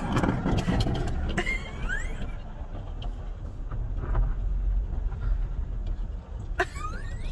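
Car engine and road rumble heard from inside the cabin as the car creeps along, with a few clicks and short rising squeaks in the first couple of seconds and again near the end.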